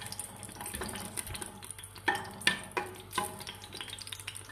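Wooden spoon stirring in a stainless steel pot as a lump of smen melts into oil, with a light sizzle and a few sharper knocks of the spoon against the pot from about two seconds in.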